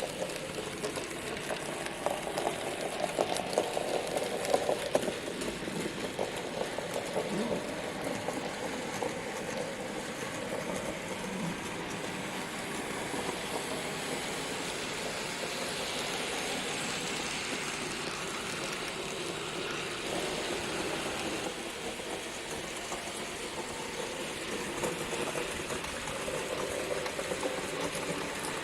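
N gauge model train running on the layout's track: the locomotive's small electric motor whirring steadily and the wheels rattling along the rails, a little louder a few seconds in.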